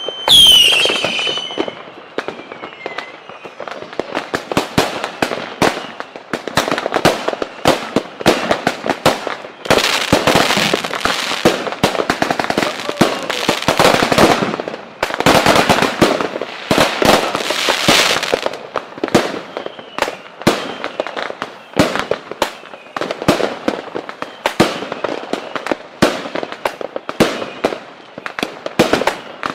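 Fireworks going off: a whistling rocket ends in a loud bang about half a second in, followed by a long, irregular string of firecracker bangs and crackling, densest in the middle.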